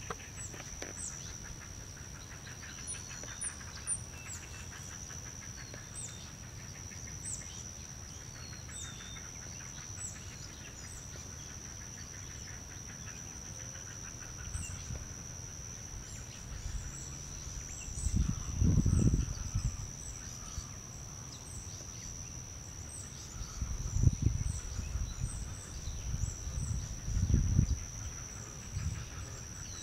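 Soft, faint clucking calls of juvenile great blue herons under a steady high-pitched whine and scattered short high chirps. Three bursts of low rumble hit the microphone in the second half; they are the loudest sounds.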